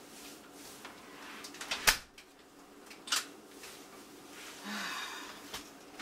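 A few sharp knocks in a small room, the loudest about two seconds in, with a brief rustle near five seconds.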